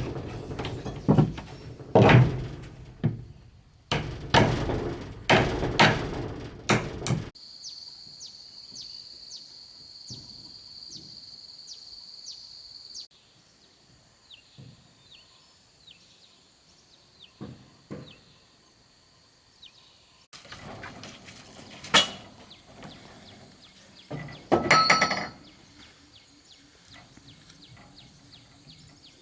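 Rapid, loud blows on wood for about seven seconds, typical of hammering or chopping timber. This cuts off abruptly to outdoor ambience: a steady high drone with regular chirps about twice a second, then quieter sounds with scattered knocks. Near the end come one sharp knock and a short louder burst.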